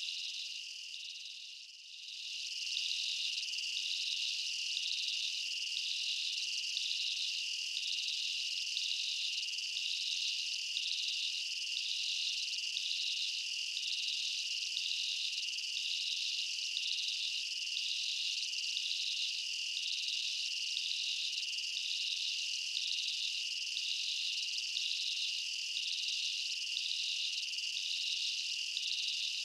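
Insect chorus: a steady shrill drone with a rhythmic pulsing chirr over it, fading down briefly about two seconds in and then carrying on unchanged.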